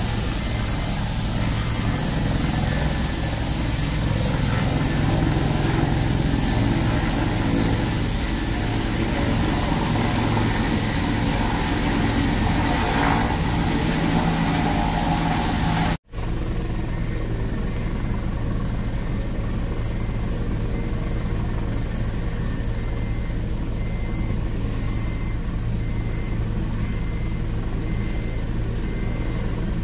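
Bell military helicopters running on the ground at close range, turbine engines and rotors going steadily with a high turbine whine. The sound drops out for an instant about halfway through; after that the helicopters are farther off and the high whine is fainter.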